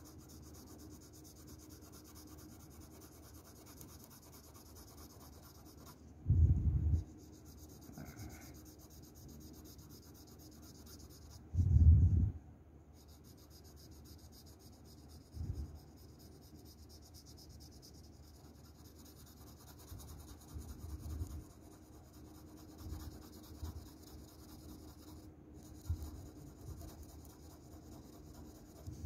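Shading pencil scratching on paper in quick, light back-and-forth strokes, a steady dry rasp. It stops twice, and each time a dull low thump sounds. A few softer knocks come later.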